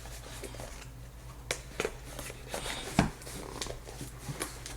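Tweeter packaging being handled as the tweeters are worked out of it: light rustling with a few sharp clicks and knocks, the loudest about three seconds in.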